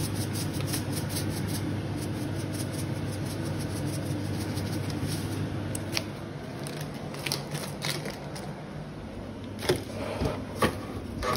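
Pot of pipis (surf clams) with a little broth heating on the stove, a light crackling over a steady low hum. From about six seconds in come a few knocks and rustles, more of them near the end, as things on a pantry shelf are handled.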